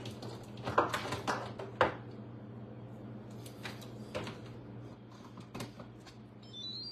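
Kitchen items being handled and set down on a counter: scattered knocks and clunks, several close together at first and then single ones a second or so apart, over a steady low hum. A brief high electronic chime sounds near the end.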